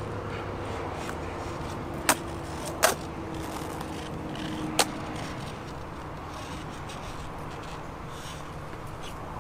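Skateboard rolling on an asphalt road, with sharp clacks of the board about two and three seconds in and a third near five seconds.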